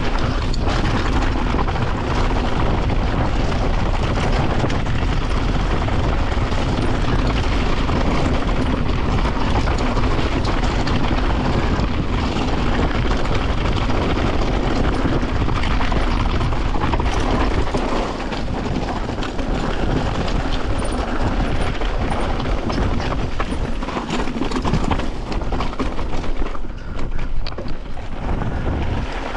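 Mountain bike riding down a loose dirt and rock trail: a steady rush of tyre noise on the dirt with the rattle of the bike, heard close up from the handlebars. It becomes a little quieter and more uneven in the second half.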